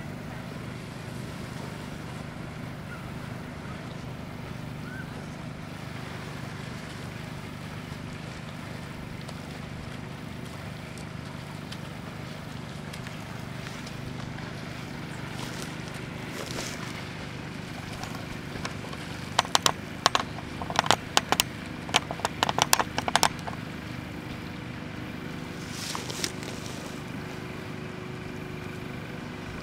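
A steady engine hum. About two-thirds of the way through, a cluster of sharp clicks or knocks comes over it for about four seconds.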